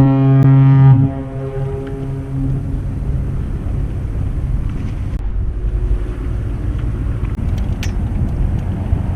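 A loud, low, steady horn blast that cuts off about a second in, followed by steady low rumbling wind-like noise.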